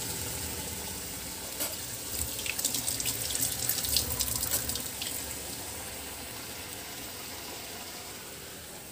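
Tomato-and-spice masala with paneer sizzling in a steel kadai on a gas burner as it is cooked down dry, with scattered crackles and pops in the first half. The sizzle grows fainter through the second half.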